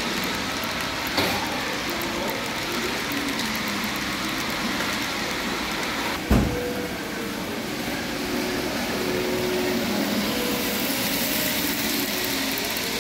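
Steady background noise of a large hall, with a small click about a second in and one sharp knock about six seconds in.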